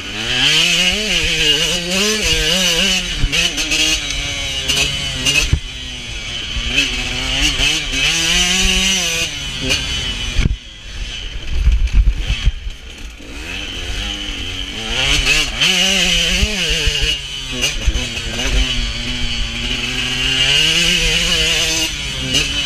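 KTM 125 SX two-stroke motocross engine revving hard and dropping back over and over as the rider works the throttle and shifts around the track. The engine falls off briefly just after ten seconds, and wind and track bumps rumble on the microphone.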